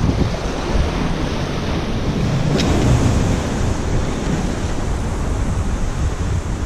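Wind buffeting the microphone over the steady wash of ocean surf, with one short sharp click about two and a half seconds in.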